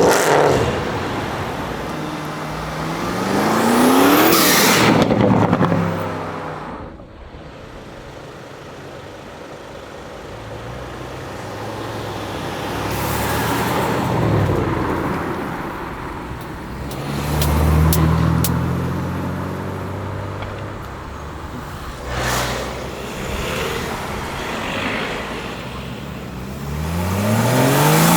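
Several performance cars accelerate and drive past one after another. Each engine note rises in pitch as it revs up, then swells and fades. The loudest passes come about four seconds in and near the end.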